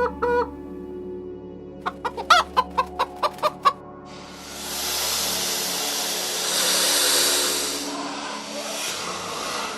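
A chicken clucking, a quick run of about eight short clucks, followed by a louder steady rushing, hiss-like noise lasting about five seconds.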